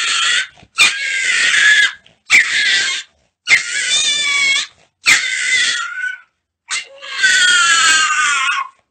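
A pet animal giving loud, repeated squealing cries, about six in a row, each around a second long with short gaps between. The last cry is the longest and slides down in pitch.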